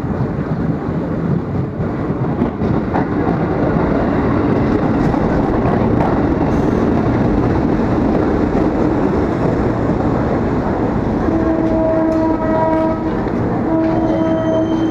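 Electric commuter train, a former JR East 203 series EMU, running into the platform and slowing to a stop, with steady rumble of wheels and running gear. Near the end a pitched tone sounds in several short pulses.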